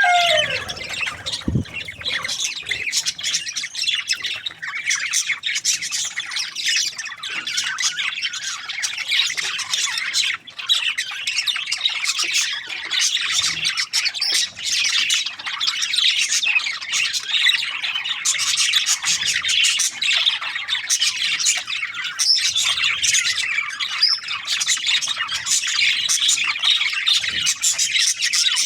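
A flock of budgerigars chattering: a dense, continuous mass of overlapping high chirps and squawks with no pauses.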